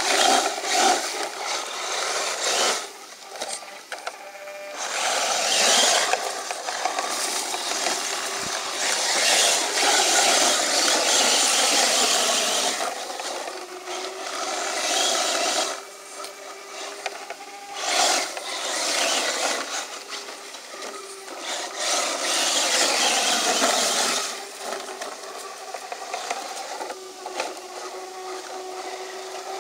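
Radio-controlled model truck driving in loose sand: its motor and gears whine, rising and falling with the throttle, while the spinning tyres throw and scrape sand in repeated bursts. It is quieter over the last few seconds.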